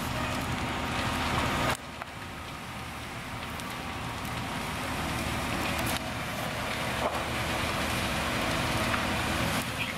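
Diesel fire engine running steadily at a fully involved house fire, under the constant crackle and snapping of the burning structure.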